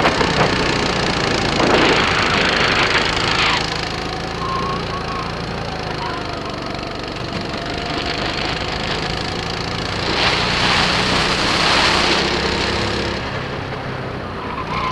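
Birel N35 rental kart's engine running on track, with a rattling, vibrating edge. A rushing noise swells up twice, about two seconds in and again about ten seconds in.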